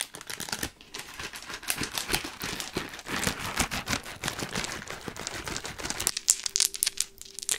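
A bagful of small decorative ladybugs shaken and rattled in a clear plastic bag: dense, rapid clicking with some crinkling of the bag, thinning to scattered clicks about six seconds in.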